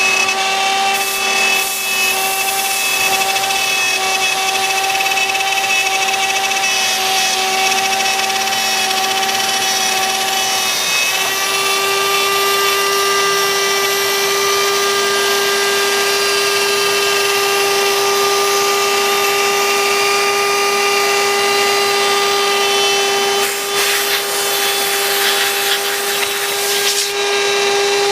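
CNC router spindle running with a steady high whine while cutting wood. The pitch steps up slightly about eleven seconds in. Harsher bursts of cutting noise come briefly near the start and for a few seconds near the end.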